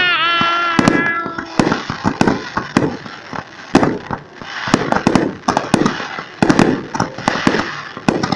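Fireworks going off: a rapid, irregular run of sharp pops and bangs over a steady hiss and crackle as shells with sparkling tails shoot up and burst. Near the start a voice gives a drawn-out cheer.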